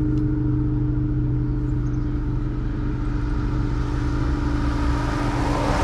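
Steady low hum of a running motor, holding one constant pitch.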